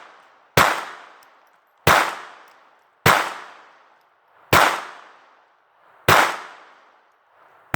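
Five shots from a Taurus PT-22 .22 LR pocket pistol, fired at an unhurried pace about a second and a half apart, each followed by an echo that dies away over about a second. A faint click comes near the end.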